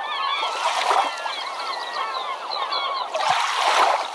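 Many birds calling and chattering over one another in quick, short chirps, with two louder bursts of rushing, splashing noise, one about a second in and one near the end.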